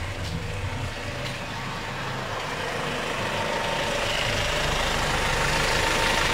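Hyundai Starex van's engine idling steadily, getting louder about halfway through as the open engine bay is neared.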